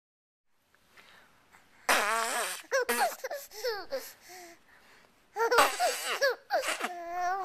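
A baby laughing: two bouts of high-pitched giggles, one starting about two seconds in and a second, slightly louder one about five and a half seconds in, with a short lull between.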